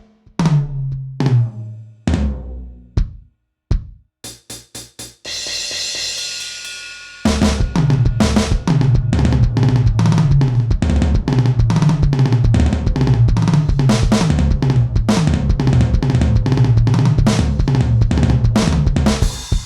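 Turbo Electronic TDX-16 electronic drum kit playing its Rock preset, heard direct from the module. A few tom strikes fall in pitch, then comes a quick run of short hits and a cymbal wash. From about seven seconds in it settles into a steady rock groove of bass drum, snare and cymbals.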